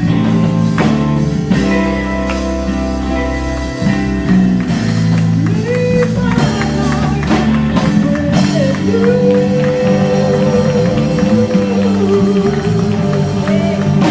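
Gospel group performing live: band music, with a solo voice coming in about five seconds in and holding a long note.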